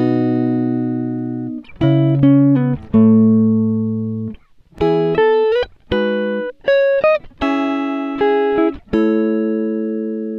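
Instrumental background music: plucked-string notes and chords, each struck and left to ring and fade, in a slow phrase with short gaps between.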